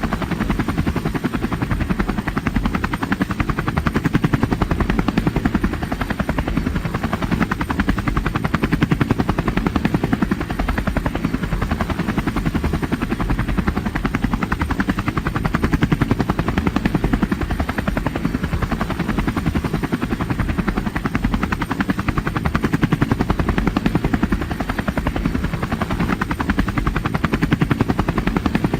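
Helicopter in steady flight: the rapid, even chop of the rotor blades over engine noise, the loudness swelling and easing slightly every few seconds.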